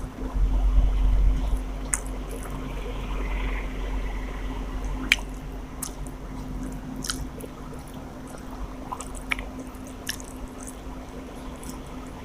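A person eating rice with chicken curry close to the microphone: wet chewing and squishing, with sharp mouth clicks now and then. There is a low rumble in the first couple of seconds.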